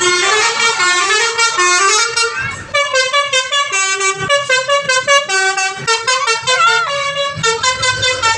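Basuri 'telolet' multi-tone bus horn playing a fast tune of stepping notes. It breaks off briefly about two and a half seconds in, then goes on with quicker, pulsing back-and-forth notes.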